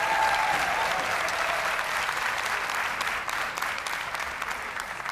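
Audience applauding, the clapping slowly dying down.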